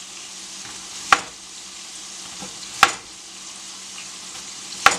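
Beef burger patties sizzling in a frying pan, a steady hiss, with three sharp knocks spaced a second or two apart.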